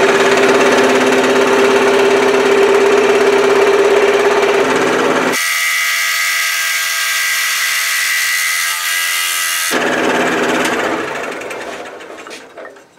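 Belt-driven P.S. Wood scroll saw running and cutting through 1½-inch-thick wood. It runs steadily and loudly. About five seconds in, the sound abruptly thins to a higher whine for about four seconds, then returns and fades away near the end.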